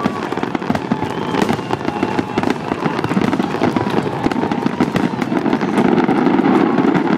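Aerial fireworks bursting overhead in a dense run of rapid crackling pops, overlapping without a break and getting a little louder near the end.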